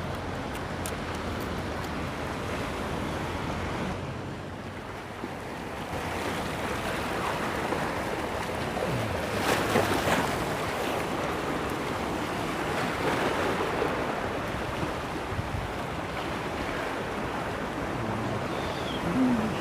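Sea waves surging and breaking on the shore in rough weather, with wind on the microphone; one louder wave breaks about ten seconds in.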